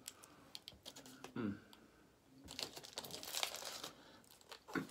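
Aluminium foil wrapper crinkling as it is handled and peeled back from a burrito, loudest for about a second and a half from halfway through, with a few small clicks before it.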